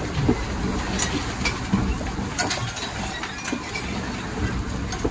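Steady low rumble of a sailboat under way, heard inside its cabin, with scattered light clicks and knocks from the boat's fittings and contents.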